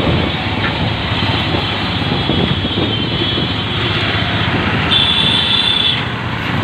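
Steady vehicle and traffic noise on a road bridge. A faint high thin tone runs through the first four seconds or so, and a stronger high-pitched tone sounds for about a second from about five seconds in.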